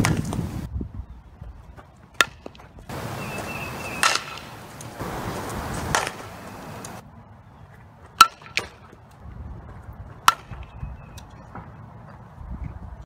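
A softball bat meeting pitched balls on bunts: about six sharp knocks, one every second or two, over wind noise on the microphone that starts and stops abruptly between clips.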